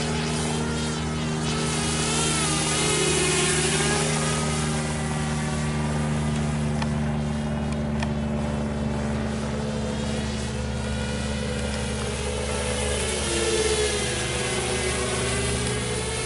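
Walkera F210 racing quadcopter flying overhead, its brushless motors whining and wavering up and down in pitch as it maneuvers. A steady low hum runs underneath.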